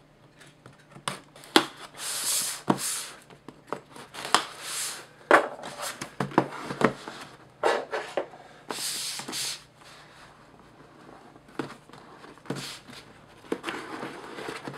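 Hands opening a sealed product box: irregular scraping and tearing noises, each lasting up to about a second, mixed with scattered sharp clicks and knocks of the box being handled.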